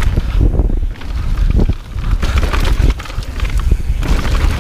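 Wind buffeting the microphone over the rumble and rattle of a mountain bike descending a rough trail, with frequent irregular knocks.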